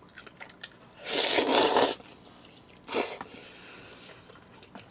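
Jajangmyeon noodles slurped into the mouth about a second in, one noisy suck lasting just under a second, then a shorter slurp about three seconds in, followed by faint chewing.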